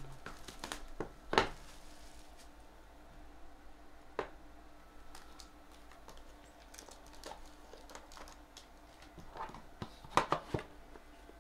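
Shrink-wrap being pulled off a trading card box and the cardboard box being opened and handled, with scattered sharp clicks and taps, the loudest about a second and a half in and a cluster near the end.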